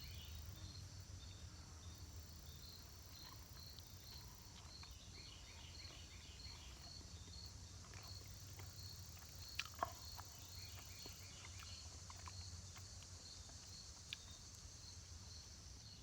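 Faint insect chorus in summer woods: a steady high drone with evenly repeating chirps, and a few sharp clicks a little past halfway.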